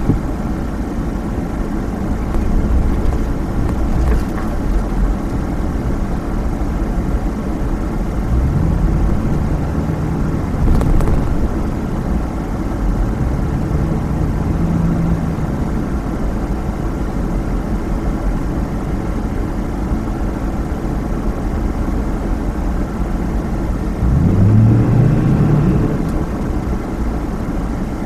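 Car driving along with steady road and engine noise. The engine note rises in pitch three times, about eight, thirteen and twenty-four seconds in.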